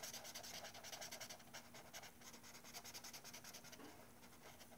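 Felt-tip marker scratching on paper in faint, quick back-and-forth strokes as a flower petal is coloured in.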